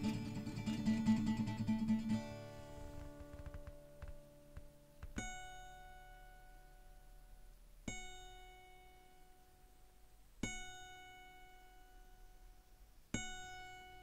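Acoustic guitar music: strumming that stops about two seconds in and fades away, then four single plucked notes about two and a half seconds apart, each left to ring out.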